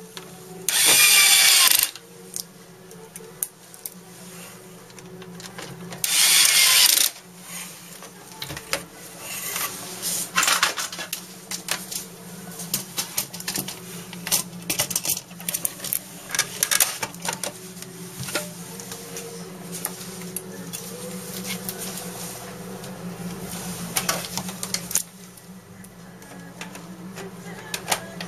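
Plastic housing of an HP inkjet all-in-one printer being handled and pried at by hand: many short clicks and knocks. Two loud harsh noises about a second long come near the start and about six seconds in.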